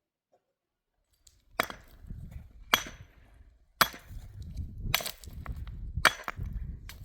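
Chopping wood: six sharp blows about a second apart, starting a little over a second in.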